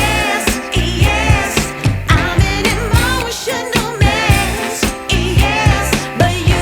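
Pop song with a female singer over a steady drum beat, used as background music.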